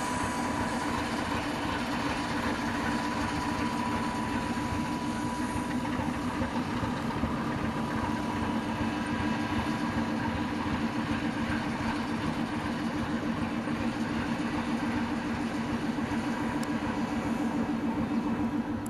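ChME3 shunting diesel locomotive's six-cylinder diesel engine running steadily with a constant low hum while it moves passenger coaches.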